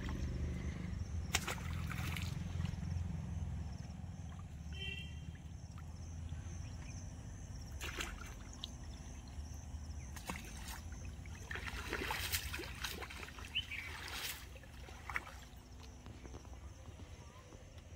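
Pond water sloshing and splashing as a man wades and handles a cast net, with several separate splashes, one of them clear about eight seconds in as something is thrown into the water. A steady low rumble runs underneath.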